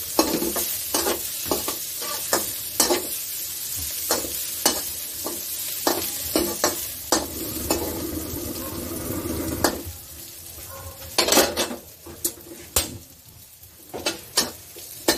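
Chopped garlic and onion sizzling in oil in an aluminium wok, stirred and scraped with a metal spatula that clicks against the pan many times. The sizzle drops lower about ten seconds in, with a few sharper knocks of the spatula after.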